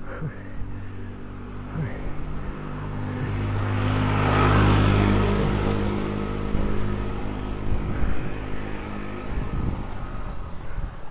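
A motor vehicle drives past, its engine growing louder to a peak about halfway through and then fading away.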